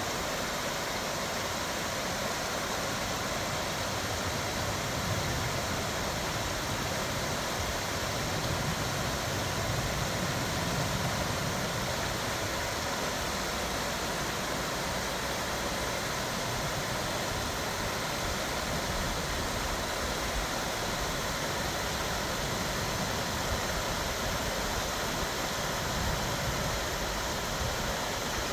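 Stream running high after rain: a steady, even rush of flowing water.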